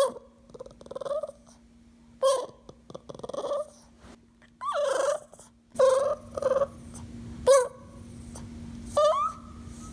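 Dog making a string of short, pitched whining and moaning vocal sounds, about eight calls that bend up and down in pitch, with pauses between them.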